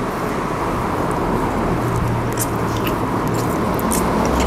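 Someone chewing a mouthful of sticky glutinous rice and pork zongzi, with small, scattered wet mouth clicks. Underneath is a steady, fairly loud background noise with a low hum.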